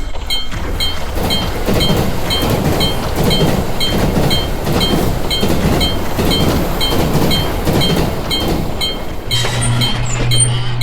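A train passing through a level crossing with a low, steady rumble, while the crossing's warning bell dings about three times a second.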